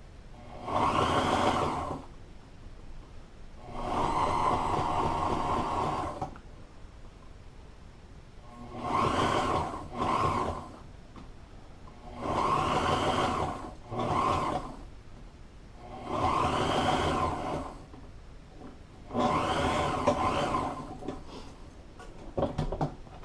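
Walking-foot sewing machine stitching a double seam through vinyl upholstery, running in six short bursts with brief stops between them while the material is guided. A few small clicks near the end.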